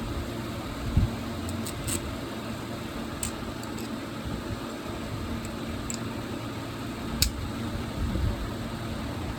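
Small 9-inch exhaust fan motor running with a steady hum, broken by a couple of sharp clicks.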